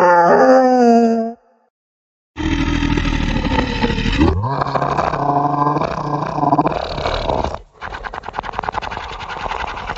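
Horror-style ghost sound effects: a falling, wailing moan that dies away about a second and a half in; after a short gap, a long, deep, growling groan of about five seconds; then a rapid rasping rattle for the last few seconds.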